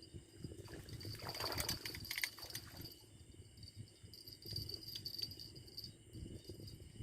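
Water splashing and trickling for about a second and a half, starting about a second in, over a steady high chirring of insects.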